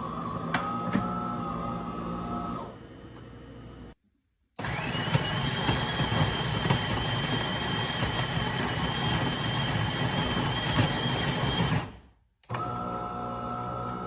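De'Longhi Eletta Explore automatic coffee machine running, its motor and pump giving a steady mechanical hum with a held whine. After a brief cut about four seconds in, a louder, rougher whirr with a higher whine comes in. It stops abruptly near the end and the first hum returns.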